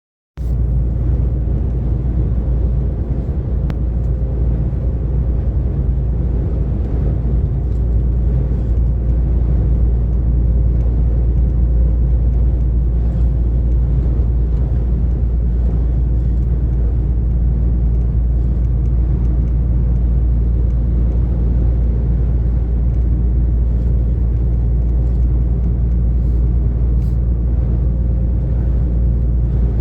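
DAF XF 460 lorry's diesel engine droning steadily with road noise while cruising, the drone starting abruptly about half a second in.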